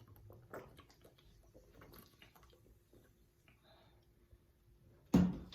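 A woman's loud open-mouthed burp, brought up by fizzy root beer, breaking out suddenly near the end and fading over about half a second. Before it there are only faint clicks and handling noises.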